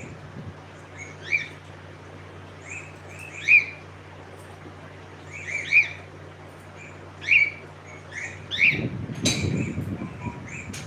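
Cockatiel giving short chirping calls, about five of them spaced a second or two apart, each a quick upward sweep in pitch. Near the end there is a low rumble with a sharp click.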